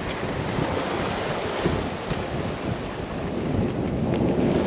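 Wind buffeting the microphone over the rush of water along the hull of a sailboat under way in a fresh breeze; a steady noise with no distinct knocks or tones.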